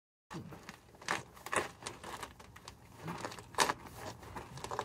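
A person working under a van on gravel: scuffing and handling noise with a few sharp clicks and knocks, the loudest about a second and a half in and again near three and a half seconds.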